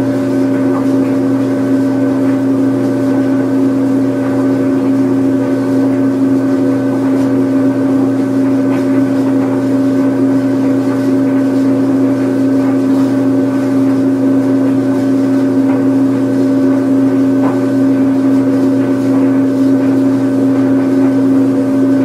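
Washing machine on its spin cycle: a steady hum at one constant pitch that runs without a break.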